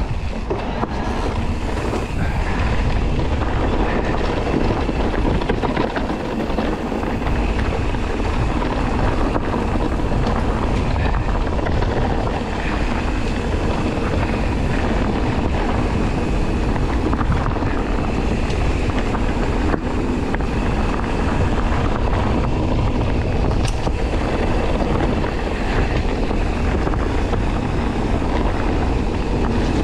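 Ride noise of an electric mountain bike on a woodland dirt trail: a steady rush of tyres rolling over dirt with wind buffeting the microphone.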